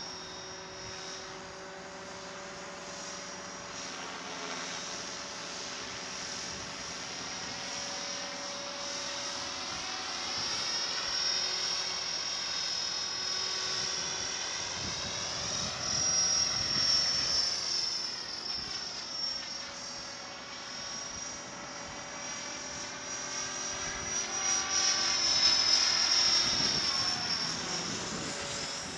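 Blade 550 X electric radio-controlled helicopter in flight: a high, steady whine from its motor and drivetrain over the whir of the rotor blades. It grows louder as the helicopter passes close, once around the middle and again near the end.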